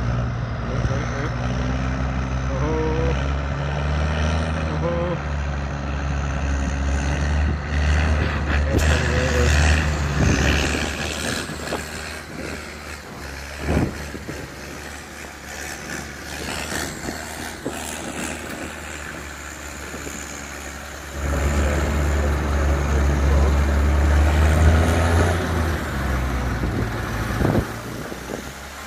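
Tractor diesel engine working hard under load, towing a truck out of deep mud. The heavy drone eases off about a third of the way in and comes back strongly about two-thirds of the way through. A single sharp crack sounds midway.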